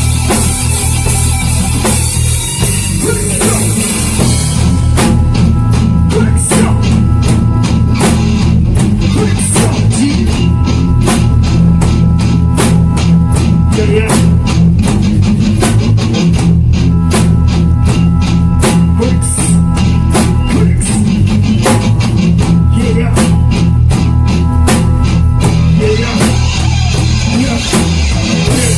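Instrumental section of a band with a drum kit, bass and guitar playing a steady groove, no vocals. For the first few seconds cymbals wash over everything, then a tight, even beat takes over.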